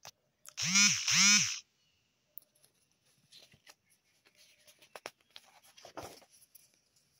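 Two short loud calls in quick succession, each rising then falling in pitch, followed by soft paper rustling and a crackle as a magazine page is turned.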